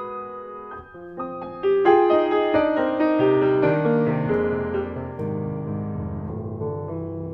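Solo grand piano playing: a soft passage, then a louder phrase about two seconds in with deep bass notes joining, the notes ringing out and slowly fading.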